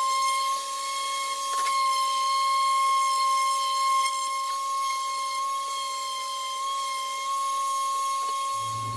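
Corded random orbital sander running steadily against a wooden board, giving a steady high-pitched whine.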